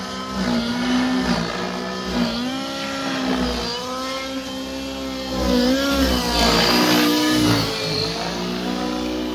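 Radio-controlled model helicopter manoeuvring overhead, its motor and rotor whine rising and falling in pitch again and again as it is thrown around the sky; it gets louder for a couple of seconds around the middle-to-late part.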